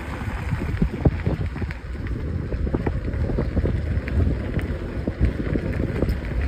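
Wind buffeting the microphone of a bicycle moving at about 19 mph, mixed with the tyres rumbling and ticking over a crushed-stone trail surface.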